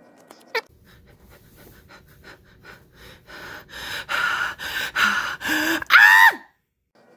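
A man breathing in quick, rhythmic gasps that grow louder, then a short high-pitched squeal that rises in pitch and cuts off suddenly: excited panting over a card pull.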